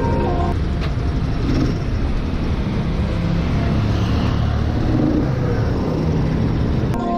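Honda Trail 110 motorcycle on the move: its engine running under a steady low rumble of road and wind noise on the rider's camera.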